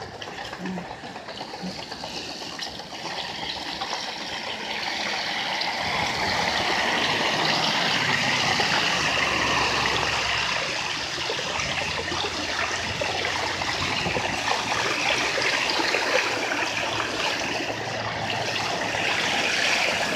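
Traffic on a wet road: a steady hiss of tyres on wet pavement. From about six seconds in, a low engine hum joins it and grows as a box truck approaches.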